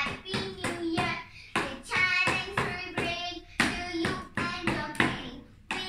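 A young girl singing in a high voice, with sharp claps or taps breaking in at an uneven beat; the singing fades to a short lull near the end before another sharp clap.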